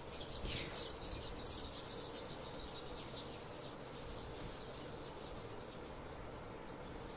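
Birds chirping: a rapid run of high chirps with one falling whistle near the start, thinning out after about three seconds.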